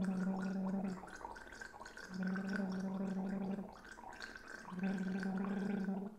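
A woman gargling water while switching her voice on and off: three held voiced hums of a second or more each, with plain bubbling gargle between them. This is a voice-training exercise of steady exhalation with the voice alternately on and off.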